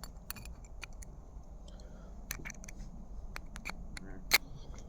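A scatter of light, sharp clicks and taps, like small plastic or metal parts being handled, with one louder click a little past four seconds in, over a faint steady hum.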